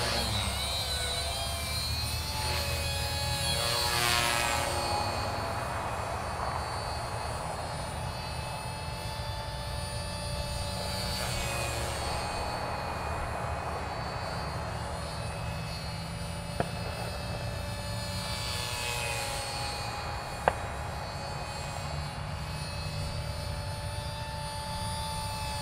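Small electric 3D RC helicopter (Matrix 250R) flying aerobatics: the high whine of its motor and rotor blades rising and falling in pitch as it swoops and turns, with wind rumbling on the microphone. Two sharp clicks are heard in the second half.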